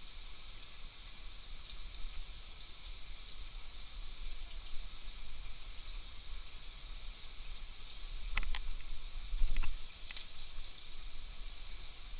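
Steady outdoor ambience: an even hiss with a constant high-pitched drone. A couple of brief knocks and rustles of handling noise come past the middle, as the fishing pole is brought in and the line taken in hand.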